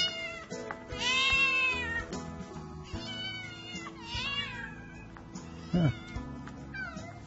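Hungry stray cats meowing again and again, about six calls, the longest and loudest about a second in, as they beg to be fed.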